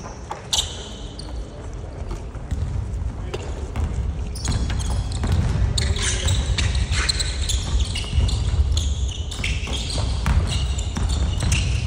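Basketball game sounds on a hardwood gym floor: a ball bouncing, sneakers squeaking in short high chirps, and players' running footsteps, echoing in the hall.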